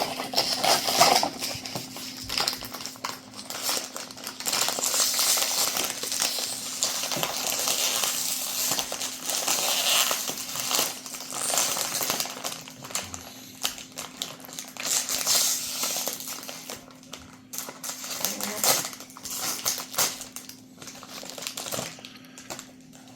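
Packaging of a surprise plush keychain being torn open and handled by hand: a continuous run of crinkling, rustling and small crackles, over a faint steady hum.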